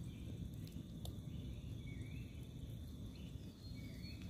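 Outdoor forest ambience: a bird repeats a short rising call about once a second over a steady high insect drone and a low rumble, with a couple of faint clicks.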